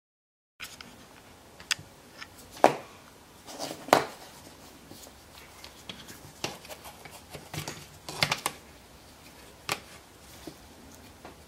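Scattered light clicks and knocks of handling, with a few sharper taps: a small metal-cased digital angle gauge being set and shifted against a wooden drill-press jig, the rotary tool in it switched off.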